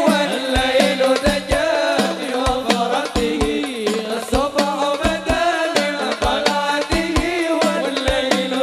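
Live sholawat music from a hadroh ensemble: a pitched melody line over steady, rhythmic hand-drum strokes.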